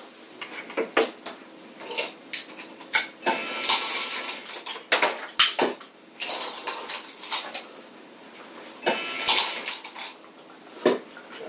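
Spoons and forks clinking and scraping against plates as several people eat, in irregular short clicks with a couple of brief noisier scrapes.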